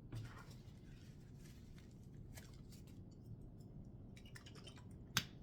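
Faint chewing and mouth sounds of someone eating, with scattered soft crackly ticks and one sharp click about five seconds in.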